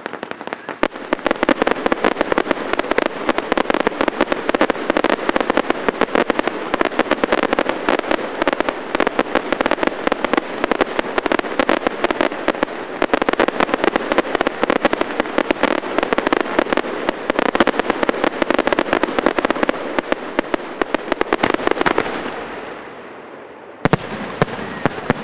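Fireworks display: a dense, rapid crackling barrage of many small bangs that builds about a second in, runs for some twenty seconds, then dies away, followed by a few separate sharp cracks near the end.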